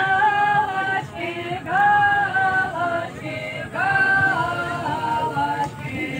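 Unaccompanied singing: voices holding long, steady notes in phrases of a second or two, with short breaks between phrases.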